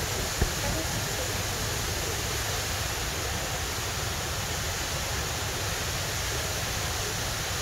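Steady, even rushing of the Rain Vortex, the large indoor waterfall at Jewel Changi Airport, with a single brief knock about half a second in.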